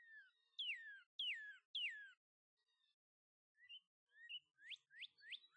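Northern cardinal singing: four slurred whistles, each falling steeply in pitch, then after a short pause a faster run of short upswept notes, about four a second, starting near the end.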